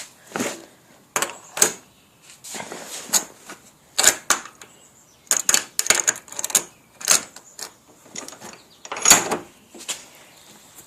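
Irregular light metallic clicks and clunks as a combination padlock and its loose dial are handled and fitted, with one louder knock about nine seconds in.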